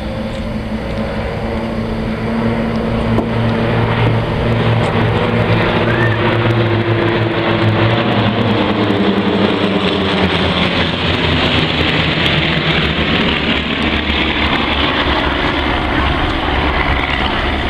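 Piston-engined propeller airplane flying past. The engine grows louder a few seconds in, then its pitch drops as it goes by.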